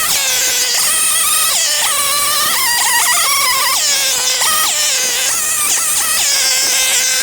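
Loud background music with a lead melody that steps between a few held notes. It cuts off abruptly at the end.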